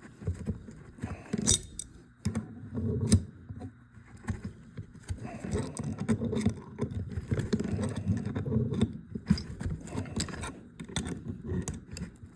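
Metal hand tools clinking, clanking and scraping against a garden tractor's hydraulic pump as a stuck part is worked loose, in irregular knocks with sharper clanks a second and a half and three seconds in.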